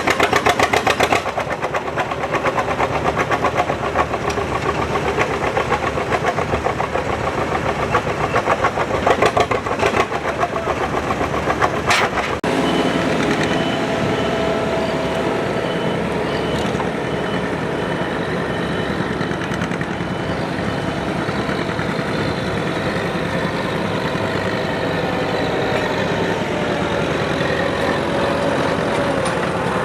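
Antique farm tractor engine running hard with rapid, even firing pulses. About twelve seconds in the sound changes abruptly to a steadier, smoother engine running.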